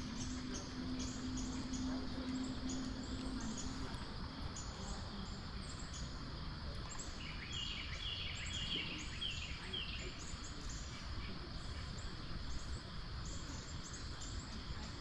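Steady rush of flowing creek water, with short high chirps repeating throughout and a quick series of bird calls a little past the middle.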